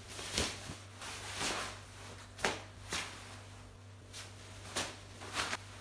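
Cloth rustling and a cord swishing as a white tasuki cord is looped around the shoulders and tied to hold back kimono sleeves: a series of short rustles, about six of them.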